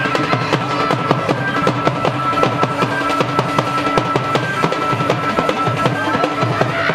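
Music with fast, dense drumming and a steady held high note sounding over it.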